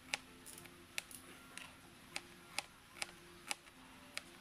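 Sharp clicks of a nail clipper snapping shut, about two a second, as it is used in place of a knife to cut onion.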